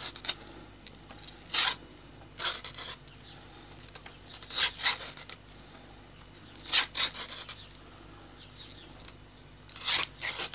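Leather lacing (thonging) tool's blade slicing a spiral strip of lace from a scrap leather disc, in short cutting strokes every second or two as the lace is pulled through. The cut is very tough going, which may mean the blade needs replacing.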